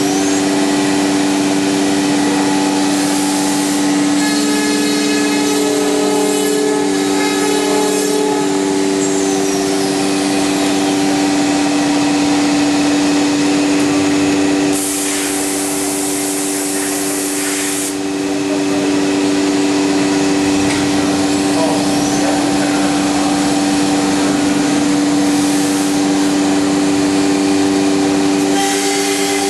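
Anderson CNC router running, with a steady hum and whine from its spindles and drives and the noise of a router bit cutting a wood panel. A loud hiss lasts about three seconds midway through.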